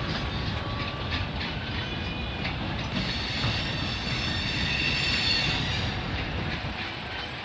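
Freight train cars rolling past, wheels clacking over the rail joints, with a high-pitched wheel squeal from about three seconds in until about six seconds in.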